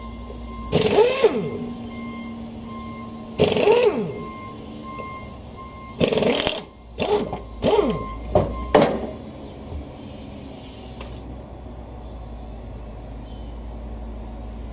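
A power tool run in about seven short bursts, each one rising and falling in pitch, the last four in quick succession between about six and nine seconds in. A steady thin whine sounds beneath it for the first six seconds, with a low hum throughout.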